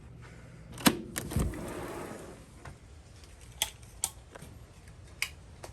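Sharp clicks and knocks: a cluster about a second in, followed by a brief rush of noise. A few more single clicks come later, spaced a second or so apart.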